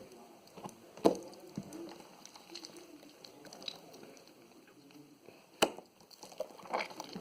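Handling noises from a slime toy being turned over on a table: two sharp knocks against the table, about a second in and again near the end, with soft sticky squelches and small clicks between.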